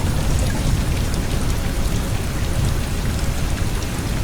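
Steady rain noise with scattered fine drops, over a constant low rumble from a fan.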